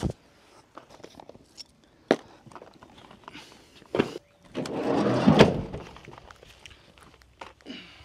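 Parts and storage being handled: scattered single knocks and thunks, with a longer, louder scraping rustle about four and a half to six seconds in.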